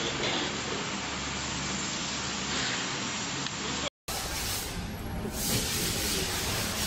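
Steady machine hiss with a faint low hum from a tandem press brake's hydraulic system running. About four seconds in, the sound drops out for an instant and a different, brighter steady hiss takes over.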